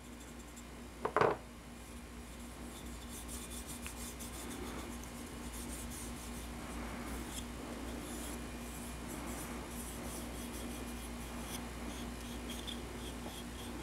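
Fingers rubbing wet oil finish into a walnut rifle foregrip: a soft, continuous rubbing with faint ticks, over a steady low hum. One brief louder sound about a second in.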